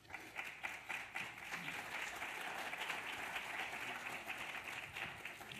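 An audience in a lecture hall applauding, starting at once and tailing off near the end.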